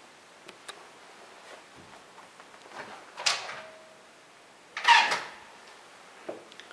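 Handling and movement noises in an empty room: a few faint clicks, two short louder scrapes about three and five seconds in, the second the loudest, and light knocks near the end.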